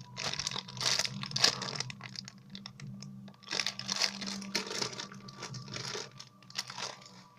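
Irregular crinkling and rustling from a rainbow cake squishy toy being handled, over a faint steady low hum.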